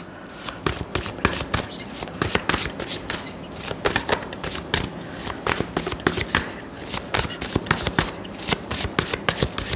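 Tarot cards being shuffled by hand, a rapid, uneven run of card clicks.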